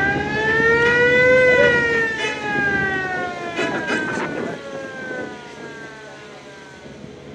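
A siren with one long wail: its pitch rises to a peak about a second and a half in, then slowly falls and fades away over the next five seconds.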